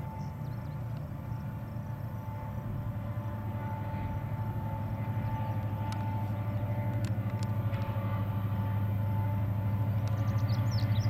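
Union Pacific diesel freight locomotives running as they approach, a low engine drone growing steadily louder and beginning to pulse near the end.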